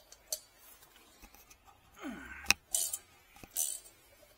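A 3/8-inch ratchet and hex socket working on motorcycle brake disc bolts: scattered light metal clicks, then a single sharp crack about halfway through. The crack is the sign of a threadlocked disc bolt breaking loose.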